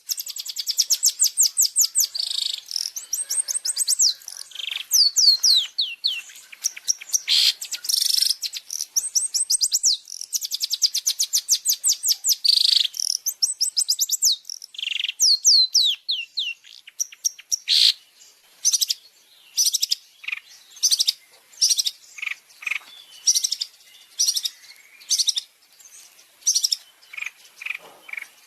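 Long-tailed shrike (cendet) song: fast runs of high sweeping notes repeated in quick bursts, changing from about halfway through to short separate notes about one a second.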